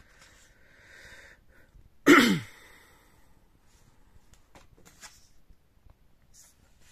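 A person sneezes once about two seconds in: a short intake of breath, then a sharp explosive burst with the voice falling in pitch. Faint ticks and slides follow as thick cardboard cards are handled.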